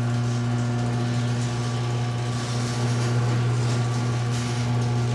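Garage door opener motor running with a steady hum as it raises the door.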